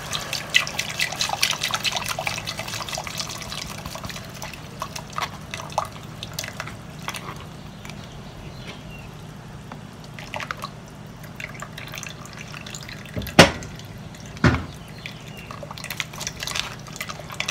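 Thick red chile sauce dripping and spattering from a plastic strainer into a pot of hot sauce, with a spoon scraping and stirring it through the mesh. The crackles are densest in the first few seconds. Two sharp knocks come about a second apart, some two-thirds of the way through.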